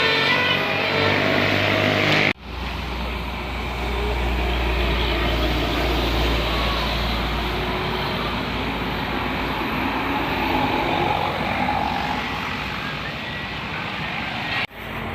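A bus's multi-tone telolet horn sounds for about the first two seconds, then cuts off abruptly. It gives way to a steady low rumble of a large vehicle's engine and road noise.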